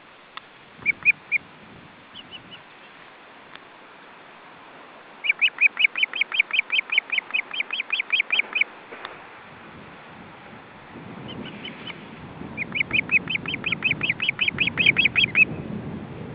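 Osprey calling: a few short high chirps, then two long runs of rapid whistled chirps, about six a second, each lasting about three seconds. Wind rumbles on the microphone through the second half.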